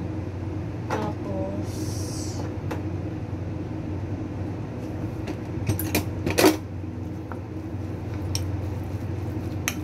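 Kitchen containers and utensils handled while seasoning chicken: a few clicks and knocks, the loudest about six and a half seconds in, over a steady low hum.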